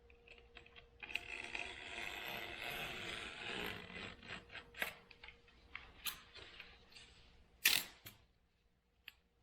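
Old window screen being cut and scraped out of its aluminum frame: a scratchy rasp for about three seconds, then a few sharp clicks, the loudest about three-quarters of the way through.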